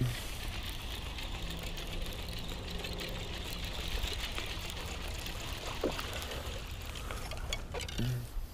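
Baitcasting reel being cranked as a hooked largemouth bass is reeled in, with water splashing near the end as the fish jumps at the surface.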